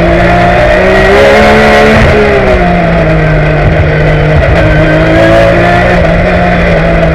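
Porsche race car's flat-six engine at full load, heard from inside the cockpit, its pitch climbing and dropping repeatedly as the car accelerates and slows for corners.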